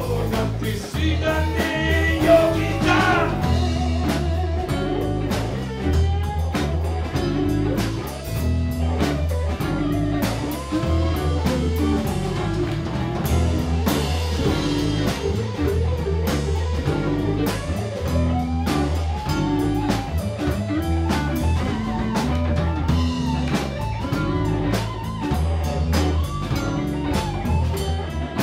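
Live band playing a blues-rock number: electric guitars over a drum kit keeping a steady beat, with a repeating low bass line.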